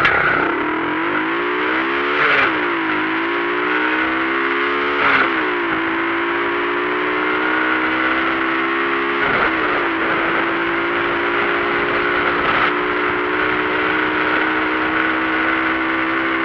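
Motorcycle engine pulling up in revs, dropping sharply at two gear changes in the first five seconds or so, then running at a steady speed.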